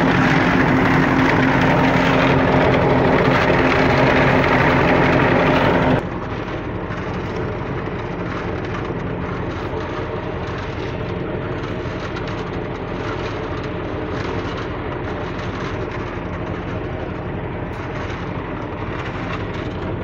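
Drum concrete mixer running: a steady mechanical rumble with a held hum. About six seconds in it drops suddenly to a quieter, steady machine hum.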